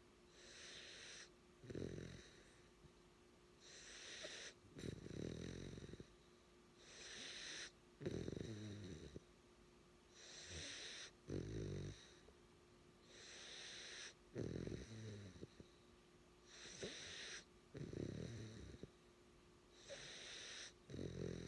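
Nine-week-old puppy snoring in its sleep, about seven slow breaths: each a hissing wheeze followed by a low rattling snore, roughly every three seconds.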